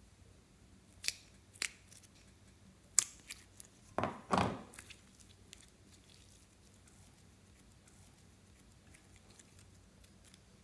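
Hands opening a plastic slime container: several sharp clicks and snaps from the plastic in the first few seconds, then a louder crackling rustle about four seconds in.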